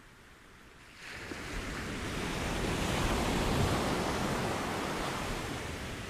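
Ocean wave breaking on the shore: a sudden rush of surf about a second in that swells to its loudest in the middle, then slowly fades as the water washes up the beach.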